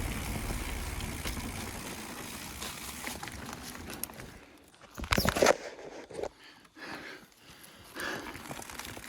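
Mountain bike rolling fast down a rough trail: steady tyre rumble and wind noise that fade as it slows, then a few loud clattering knocks about five seconds in and scattered ticks and rattles afterwards.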